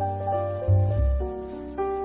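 Background instrumental music: keyboard notes over a held bass note that changes about two-thirds of a second in.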